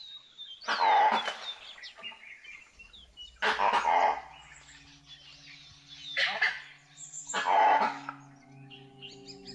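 Four short, loud bark-like animal calls, spaced a couple of seconds apart, with birds chirping faintly between them. A low, steady musical drone comes in about halfway through.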